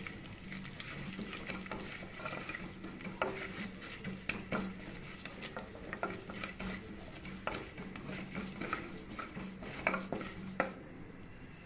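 Mustard seeds, urad dal and cumin frying in hot oil and ghee in an aluminium pressure cooker, stirred with a wooden spatula, with scattered sharp pops as the mustard seeds splutter, a sign the tempering oil is hot enough. The pops die down about ten and a half seconds in.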